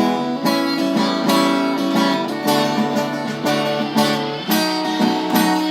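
Acoustic guitar strummed and picked in a folk-blues style, with repeated chord strokes.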